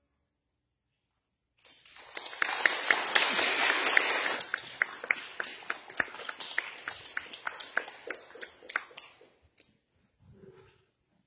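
Applause from a small group of people, starting about a second and a half in, dense at first, then thinning to scattered single claps and dying out near the end.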